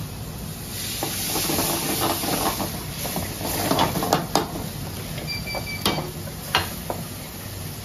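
Masala sizzling in an aluminium frying pan on a gas burner, stirred with a metal ladle that scrapes and clinks against the pan several times, over a steady hiss of frying and burner flames.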